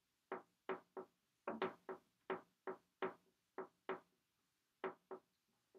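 Dry-erase marker writing on a whiteboard: a run of about a dozen short strokes, roughly two a second, with a slightly longer gap near the end.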